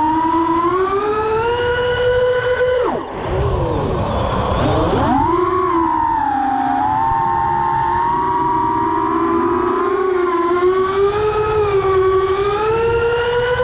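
Emax 1606 3300kv brushless motors on a small FPV quadcopter whining in flight, the pitch rising and falling with the throttle. About three seconds in the throttle is cut and the whine drops away sharply, then climbs back within two seconds. Wind rushes over the onboard camera's microphone.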